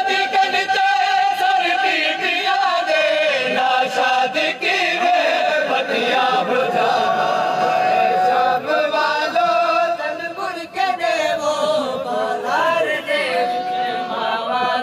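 A group of men chanting a noha, a Shia lament, together in a slow melodic line with long held notes.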